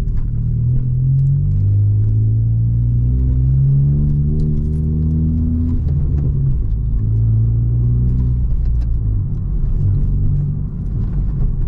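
Honda Civic FK7 hatchback engine heard from inside the cabin, pulling up through the gears with a manual gearbox: the engine note rises for a few seconds, drops at a shift about halfway through, then climbs again, with light clicks and rattles over it.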